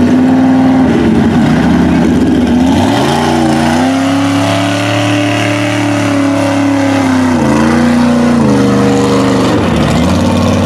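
Chevy Blazer mega truck's engine revving hard under load while churning through deep mud. The revs climb about three seconds in and hold high for several seconds, then drop and pick up again twice near the end.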